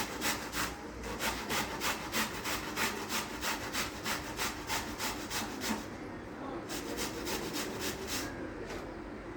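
A peeled onion being grated by hand on a kitchen grater: rhythmic rasping strokes, about three a second, with a short pause partway through and the strokes trailing off near the end.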